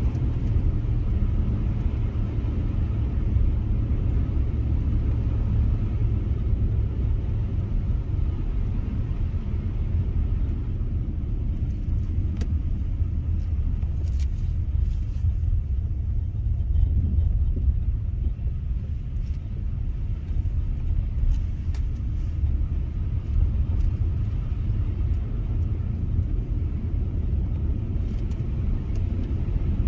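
Steady low rumble of a car driving on a snow-covered road: engine and tyre noise.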